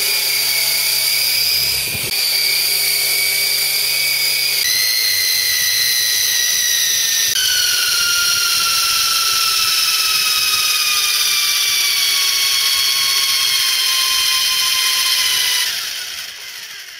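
Double Horse 9088 coaxial RC Apache helicopter's motors and rotors running with a loud, high-pitched whine like spinning turbines. The pitch steps a few times, sinks slowly over several seconds, and fades out near the end as the rotors spin down.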